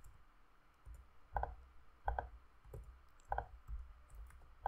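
Computer mouse clicking: several separate sharp clicks at irregular intervals, as faces are selected in a 3D modelling program.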